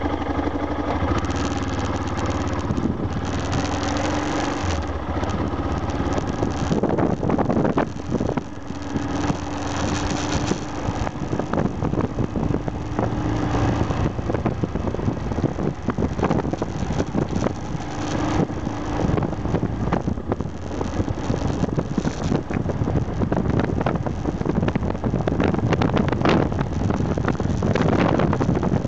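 Aprilia Pegaso 650 Strada motorcycle's single-cylinder engine running while the bike is ridden along, its pitch shifting a little with the throttle, with gusts of wind noise buffeting the microphone.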